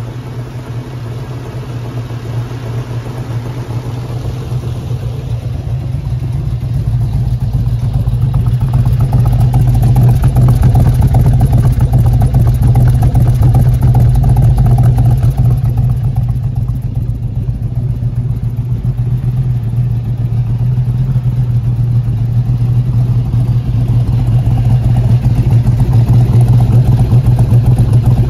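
Freshly rebuilt GM L99 LS3 all-aluminum V8 idling steadily just after its break-in run. The exhaust note grows louder over the first ten seconds and is heard close at the tailpipe.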